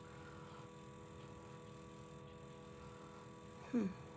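Faint steady electrical hum, with one short sound falling in pitch near the end.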